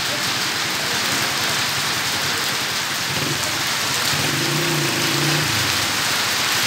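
Steady rain pattering on wet pavement and a tarmac road. From about three seconds in, a low drone comes and goes beneath it.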